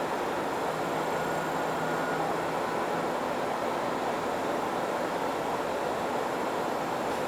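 Steady rumbling noise of KiHa E130 diesel railcars idling at the depot, with a faint low hum that fades about three seconds in.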